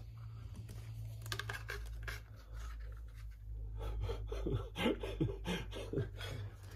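Clear plastic packaging being handled and pulled off a small 1/24-scale RC crawler truck: scattered clicks, scratches and rubbing, with a few short squeaks about four to five seconds in, over a steady low hum.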